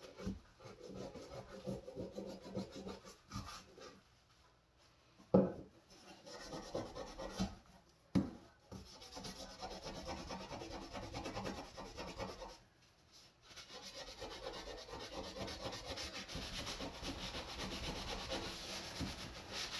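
Green scouring pad scrubbing a vintage Wüsthof kitchen knife on a wooden sink-bridge board, in repeated rubbing strokes that stop briefly twice, cleaning grime off the blade. A few sharp knocks cut in, the loudest about five seconds in and another about eight seconds in.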